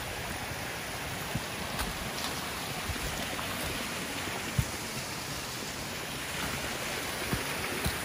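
Steady rush of flowing water, with a few faint knocks and one sharper tap about halfway through.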